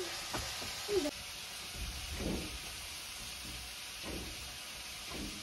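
A steady hiss, with a few faint fragments of children's voices.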